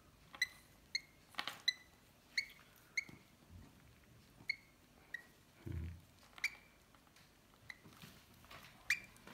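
Hand-reared lovebird chick peeping: a dozen or so short, high squeaks at irregular intervals, about one or two a second. A brief low thump about six seconds in.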